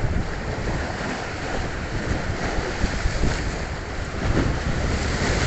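Wind buffeting the microphone: a steady rough rush, heaviest in the low rumble.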